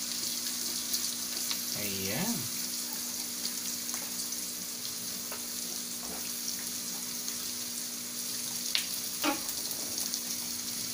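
Diced potatoes, carrots and onion sizzling steadily in hot oil in a steel wok, with a few sharp clicks of a metal turner against the pan near the end.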